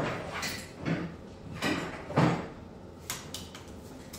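Workshop handling noises: a series of about six irregular knocks and clatters, spread unevenly over four seconds.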